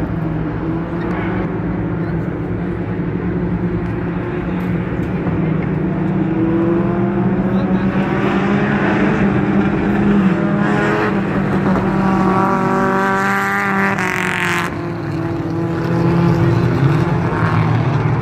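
Mini stock race cars' four-cylinder engines running together in a steady drone. One engine revs up in a rising whine from about eight seconds in and cuts off sharply near fourteen seconds, like a shift or a lift off the throttle.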